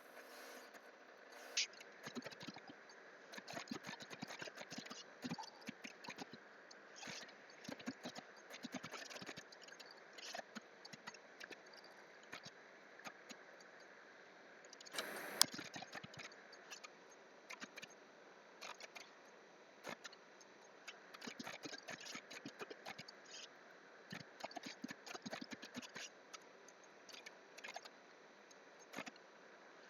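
Faint computer keyboard typing and clicking: irregular light taps and clicks, with a short louder rustle about fifteen seconds in.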